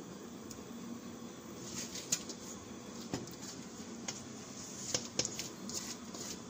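Fingers scraping thick spice marinade out of a mixing bowl onto raw chicken in a perforated metal rice strainer, with scattered light clicks and taps of bowl and fingers against the metal, over a faint steady hum.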